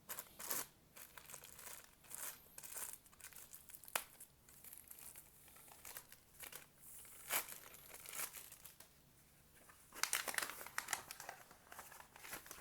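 Packaging crinkling and rustling as a playmat is handled and unwrapped, in faint, uneven bursts with a sharp tick about four seconds in and a busier run of crinkling near the end.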